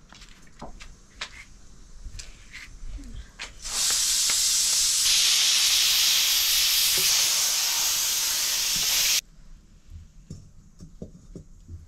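Loud, steady sizzling in a hot cooking pan that starts suddenly about four seconds in and cuts off abruptly some five seconds later, with a few light knocks before it.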